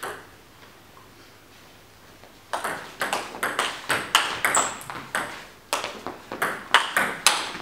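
Table tennis rally: the ball clicking sharply off bats and table in quick alternation, several hits a second. The clicks start about two and a half seconds in, after a quiet pause while the serve is prepared.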